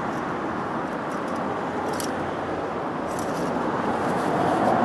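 Steady background noise with a few faint clicks and scrapes as an engine oil dipstick is drawn from its tube and handled with a paper towel.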